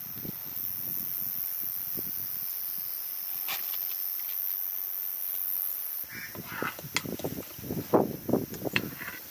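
Outdoor ambience with a steady high-pitched hiss. About six seconds in, the sound changes abruptly to a run of loud, short animal calls, like farmyard fowl honking.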